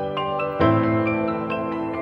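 Background instrumental music: quick repeated notes over held chords, with the chord changing about half a second in.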